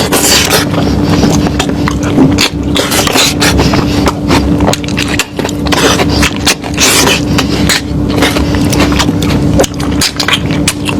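Close-miked eating of lamb: chewing and tearing meat, with many sharp wet clicks and smacks, over a steady low hum.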